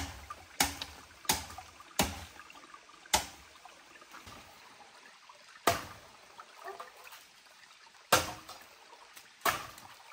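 Footsteps crunching and snapping through dry bamboo leaves and twigs: about eight sharp crunches, irregularly spaced, closer together in the first two seconds and further apart after.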